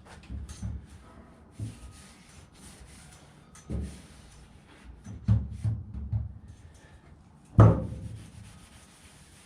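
Scattered dull knocks and thumps from working on a warped car body panel, about half a dozen with the loudest and sharpest near the end.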